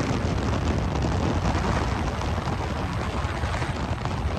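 Wind buffeting a phone microphone held out of a moving car, a steady rushing rumble heaviest in the low end, with road noise underneath.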